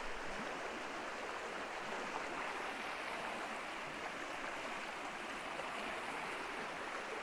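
Small stream rushing steadily over flat rock and through shallow rapids, a constant splashing flow of water.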